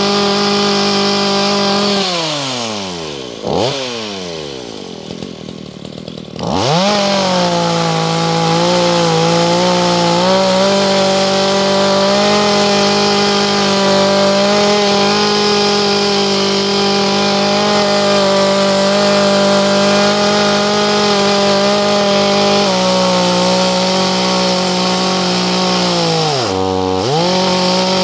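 Chainsaw cutting wood at high revs. About two seconds in the engine winds down to a quieter idle with a short blip, then revs back up and holds; near the end it dips briefly and picks up again.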